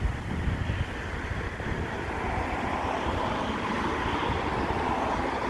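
Wind buffeting the microphone over a steady distant engine roar, which swells slightly in the second half.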